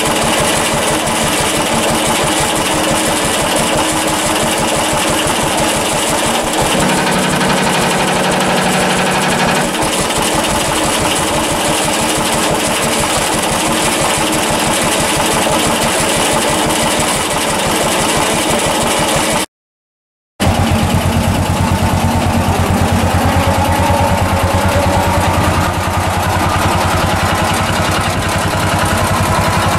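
Ransomes MG6 crawler tractor's air-cooled single-cylinder engine running steadily with an even firing beat, its note changing for a few seconds a little way in; at some speeds the engine shakes the lift mechanism into resonance. After a short break it runs faster.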